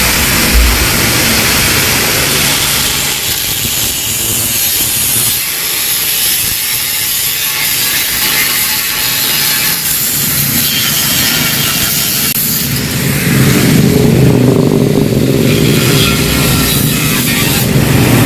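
Angle grinder cutting open the steel shell of a Yamaha RX-King exhaust muffler, grinding steadily with a bright, hissing edge. It grows louder and fuller about two-thirds of the way through.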